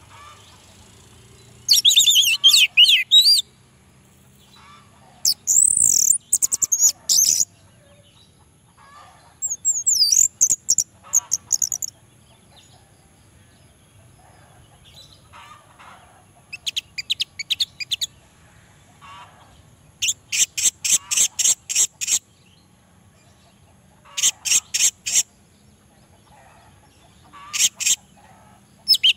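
Orange-headed thrush singing in about seven bursts of quick, high-pitched phrases with rapidly repeated notes, each burst one to three seconds long and separated by pauses of a few seconds.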